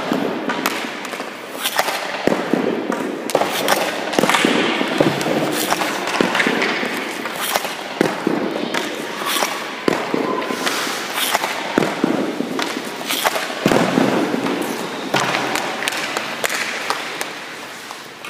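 Ice hockey shooting drill: hockey sticks cracking on pucks and pucks striking a goalie's pads, the net and the boards, in irregular sharp hits about one every half second to a second, over a steady scraping haze of skates on ice.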